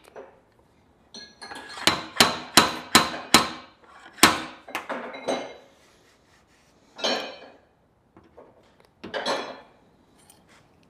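Stud-welding dent puller's slide hammer yanked against its stop, sharp metallic clanks pulling a dent out of a steel car body panel. A quick run of about five strikes comes about two seconds in, then a few more spaced out, with single ones near the middle and toward the end.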